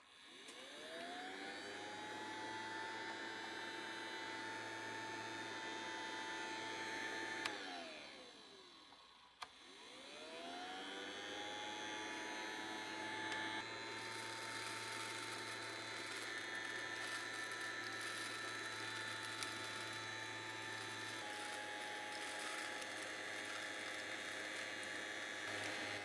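Small electric motor in a toy whirring: it spins up to a steady whine, is switched off and winds down about eight seconds in, then clicks on and spins up again, running steadily.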